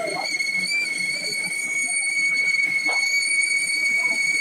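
Metal-cutting lathe during a boring cut, giving a steady high-pitched whistling squeal that holds one pitch throughout.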